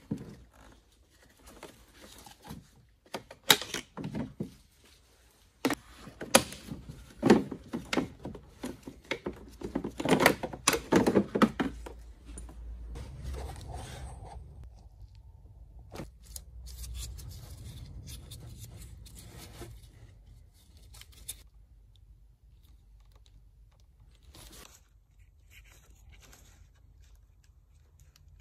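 Gloved hands working the car's battery wiring and plastic parts in the engine bay: irregular clicks, knocks and rustles as electrical connectors and plastic pieces are handled and unclipped. They are busiest in the first half, then sparser over a low rumble.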